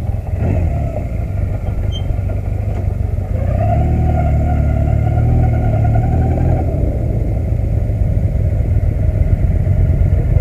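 Sport motorcycle engine running. It revs up about three to four seconds in, holds the higher note for about three seconds, then eases back off.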